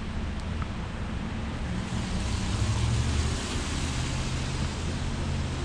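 A motor vehicle's engine running under a steady rush of road or wind noise, swelling slightly about two to three seconds in.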